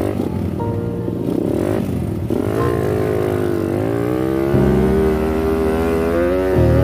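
Trail motorcycle engine revving as the bike pulls away up a dirt track, starting about two and a half seconds in, its pitch rising and falling with the throttle. Background music plays under it.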